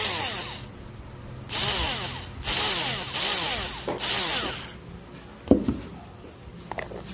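Small electric motor of a handheld electric garlic chopper whirring in four short bursts, its pitch wavering. A sharp knock follows about five and a half seconds in, then a couple of light clicks near the end.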